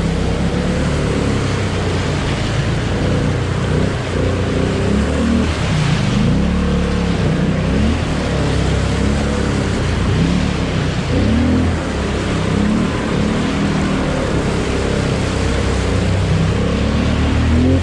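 ATV engine running with the throttle rising and falling while the quad rides through muddy puddles, with water and mud splashing.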